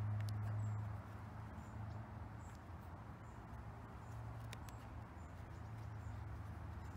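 Quiet background with a low steady hum, a few soft clicks as the foam air filter is pressed into the plastic filter housing of a petrol lawnmower, and faint high chirps.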